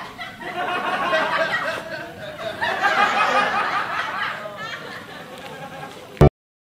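Laughter from several voices, a dropped-in laughing sound effect, rising and falling in waves; it ends with a short loud thump near the end.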